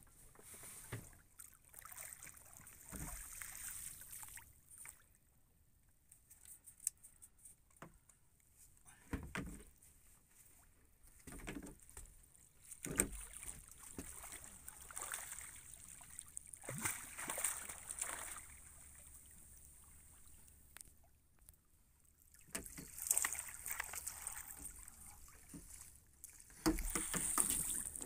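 Irregular splashing and sloshing of water against the side of a small boat as a hooked tope shark thrashes at the surface.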